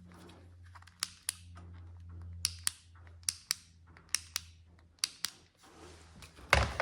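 Headlamp's push-button switch clicked about five times, each press a quick pair of sharp clicks, over a low steady hum; a louder thump near the end.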